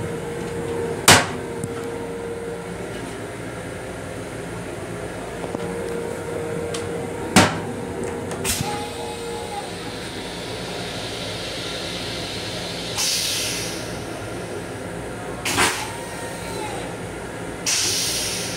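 Railcar toilet in an M7 commuter-train restroom: a few sharp knocks of the plastic lid and seat being handled, then two short hissing rushes as the toilet flushes, over the steady running noise of the train.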